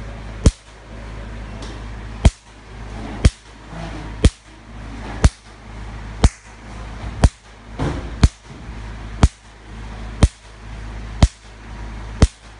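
Picosecond laser handpiece firing pulses into black paper: a sharp snap about once a second as each pulse blasts a spot off the paper. A steady low hum runs underneath.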